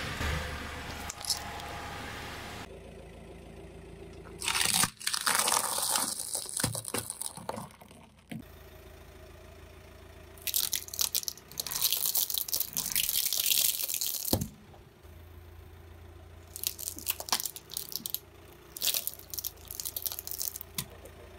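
Car tyre rolling over and crushing pine cones: dense crunching and crackling in several bursts a few seconds long, with quieter gaps between them.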